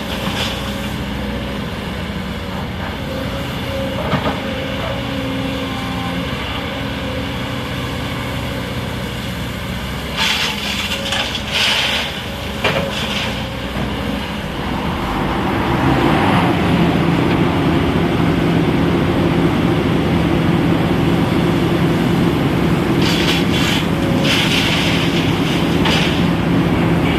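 Sany excavator's diesel engine running steadily while it loads a dump truck, with two spells of short noisy bursts as it works. About halfway through, the engine note grows louder and heavier, as under hydraulic load, and stays that way.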